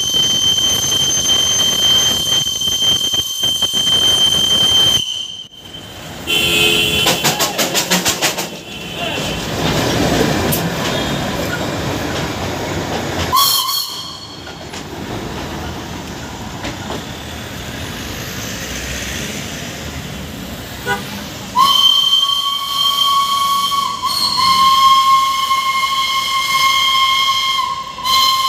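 Darjeeling Himalayan Railway steam locomotive: long steady whistle blasts, one high-pitched at the start and several lower blasts in the last quarter, with hissing and rushing train noise as the carriages pass in between.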